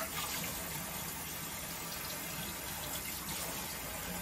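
Kitchen sink tap running steadily while hands are washed under it, with a brief knock right at the start.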